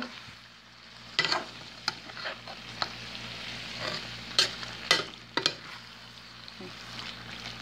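A metal spoon stirring rotini pasta, pork and onions in thick barbecue sauce in a pot: scattered clicks and scrapes of the spoon against the pot over a faint steady hiss.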